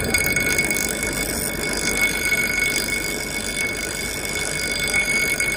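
Bench grinder's abrasive wheel grinding a strip of old saw-blade steel: a steady grinding hiss with a high ringing whine over the motor's hum.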